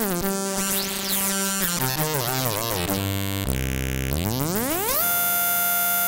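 Waldorf Microwave XT wavetable synthesizer playing gliding tones. A note slides down and holds, then lower notes step downward while the tone colour sweeps. Near the end the pitch glides up over about a second into a steady held note, with light plate reverb.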